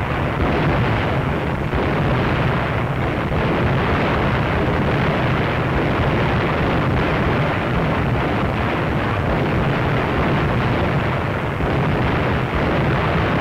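A battleship's twin-mount 5-inch secondary guns firing in quick succession, the shots running together into one steady, dense rumble with no clear gaps.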